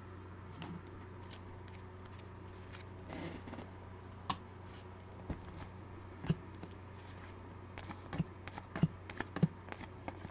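2020 Panini Legacy football cards being flipped through by hand: soft clicks and snaps of card edges, sparse at first and coming quicker in the second half, with a brief rustle about three seconds in. A steady low hum runs underneath.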